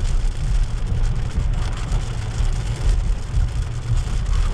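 Vehicle driving on a wet road in heavy rain, heard from inside the cabin: a steady low rumble of engine and tyres under the hiss of rain on the windshield and roof.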